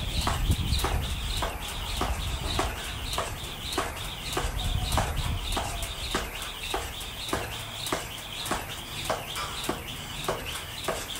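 Jump rope slapping a concrete floor about twice a second in a steady skipping rhythm, with the rope's whir between the slaps.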